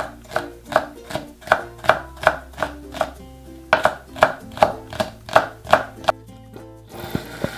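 Chef's knife chopping fresh chili peppers on a wooden cutting board: a steady rhythm of about three knife strokes a second, with a short pause about three seconds in, stopping about six seconds in. Light background music plays underneath.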